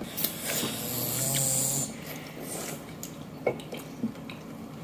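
A child sucking air and drink hard through a long novelty eyeglasses-shaped plastic straw: a rasping, gurgling slurp for about a second and a half, then a shorter hiss and a few small clicks.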